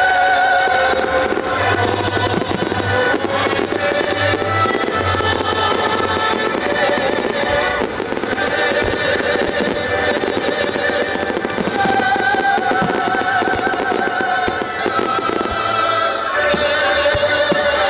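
Aerial fireworks crackling and popping in a dense run of small bursts, over loud music with long held notes.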